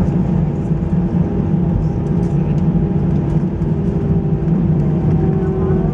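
Steady cabin noise of an Airbus A320 heard from inside the cabin: its jet engines running with a constant hum and several held tones.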